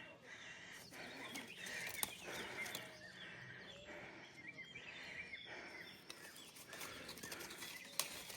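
Birds chirping softly over recurring rustling noise, with a couple of sharp clicks, one about two seconds in and one near the end.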